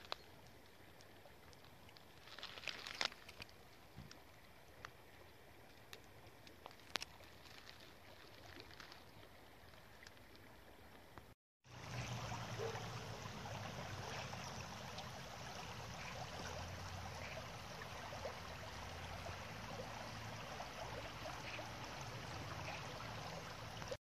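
Shallow river water flowing over stones: at first a faint lapping with a few small ticks. After an abrupt cut about halfway through comes a louder, steady rush of rippling current.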